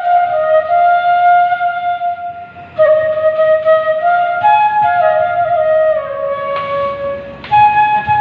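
Bamboo flute (bashi) playing a slow melody of held, stepwise notes, with a brief breath break about three seconds in and another near the end.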